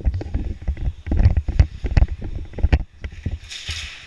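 A dense run of irregular thumps and sharp knocks, heaviest in the middle, with a short hiss about three and a half seconds in.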